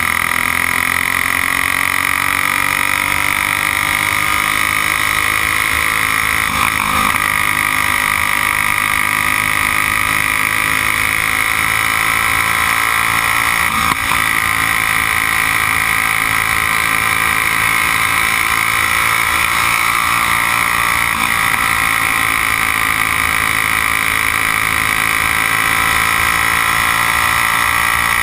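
Briggs & Stratton Raptor single-cylinder flathead kart engine at racing speed, heard onboard. Its pitch climbs along the straights and sags briefly in the turns about every seven seconds, lap after lap.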